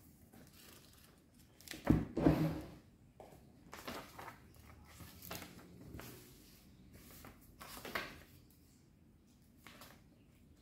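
A paper notebook handled and opened on a desk: two sharp knocks about two seconds in as it is set down, then softer rustles and taps of paper and hands.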